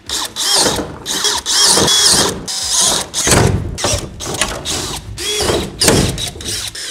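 Cordless drill with a 5/16-inch bit drilling out the dimples in a composite partition's flange to make mounting holes. It runs in several short bursts, its whine rising and falling as it speeds up and slows.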